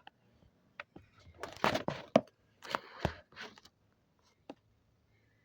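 Handling noise: rustling scrapes and a few sharp knocks as the recording tablet is moved and set down, loudest about two seconds in.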